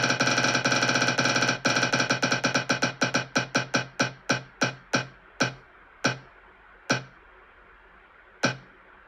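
Spin-the-wheel app's electronic tick, one short pitched blip for each name segment passing the pointer. At first the ticks are so fast they run together; then they slow steadily as the wheel loses speed, down to single ticks more than a second apart, the last one near the end as the wheel comes to rest.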